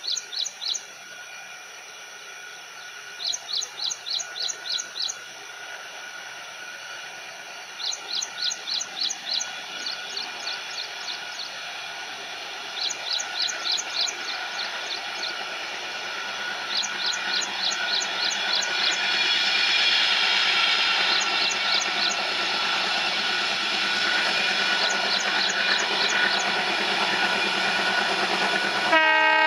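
A bird calls in quick runs of short, high, repeated notes, one run every few seconds. From about halfway through, the noise of an approaching diesel train grows steadily louder, and the train's horn starts to sound at the very end.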